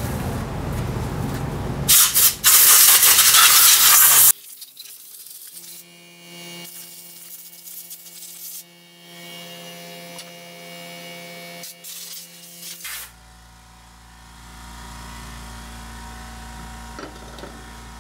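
A loud spraying hiss lasting about two seconds, during drive-belt work on a scooter's CVT, then a quieter steady hum with a few faint knocks.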